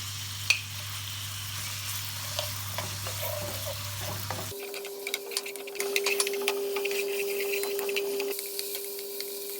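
Chicken pieces frying in oil in a pan, sizzling steadily, with the clicks of a spoon stirring against the pan. The background hum changes abruptly about halfway through.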